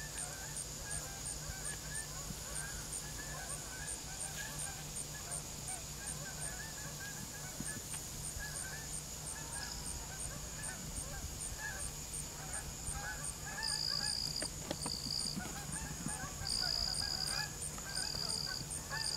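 A flock of geese honking, many short overlapping calls throughout.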